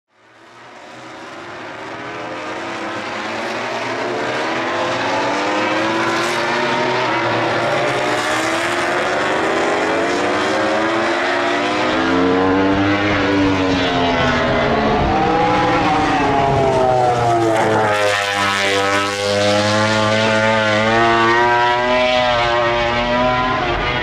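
MotoGP racing motorcycle engines at race pace, the Aprilia RS-GP's big-bang V4 among them. The pitch climbs through the gears and drops on downshifts again and again as bikes pass. The sound fades in over the first few seconds.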